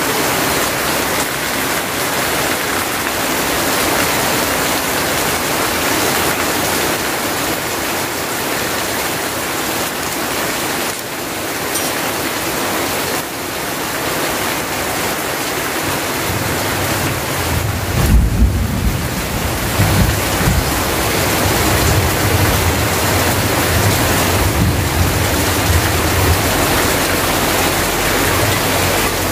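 Heavy rain falling steadily, with a stream of runoff pouring off the edge of a tarpaulin and splashing on the ground. About sixteen seconds in, a low rumble joins it, starting with a sharp jolt and going on under the rain.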